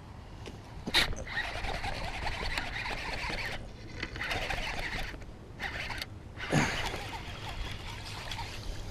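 Shimano Curado 201 HG baitcasting reel being cranked in several short spells, a rough gear whirr, with a sharp click about a second in and a brief falling swish about six and a half seconds in.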